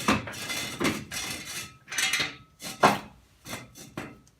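Steel jack stand being set in place under a raised car. Several metal-on-metal clanks and scrapes, the loudest a little before three seconds in.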